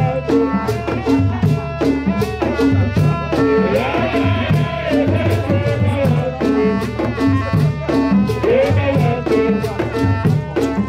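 Live Tiv traditional music: a drum ensemble of upright hand drums beating a quick, steady dance rhythm with a rattle, with a pitched melody line that glides up and down over the drums.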